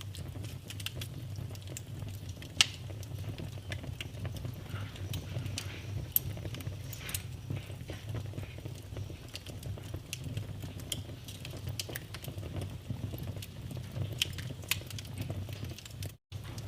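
Wood fire burning in a fireplace, crackling steadily with irregular sharp pops over a low rumble. The loudest pop comes about two and a half seconds in. The sound cuts out for a split second near the end.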